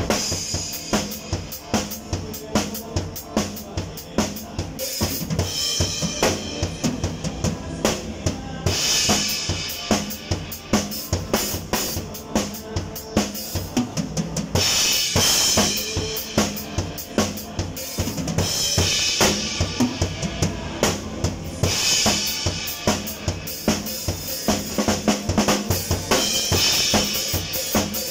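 Acoustic drum kit played with sticks in a steady groove, kick and snare strokes under the cymbals, with a loud cymbal wash coming back every few seconds.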